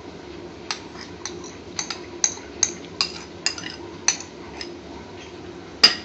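Light clinks and taps of a dish and utensil against crockery as peeled tomato is tipped and scraped into a stainless steel saucepan: about a dozen irregular clicks, roughly three a second, then a louder knock near the end.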